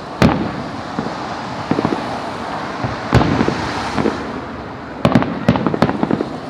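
Fireworks display: aerial shells bursting one after another over a constant rumble, with a quick run of sharp bangs about five seconds in.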